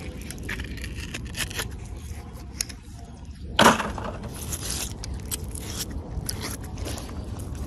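A gloved hand scraping and pulling clumps of rusty metal debris off a magnet-fishing magnet, with scattered small clicks and a louder scrape about three and a half seconds in.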